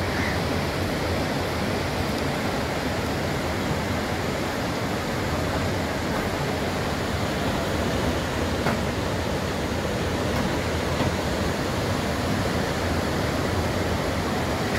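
Sea surf breaking and washing up a sandy beach, a steady even rush.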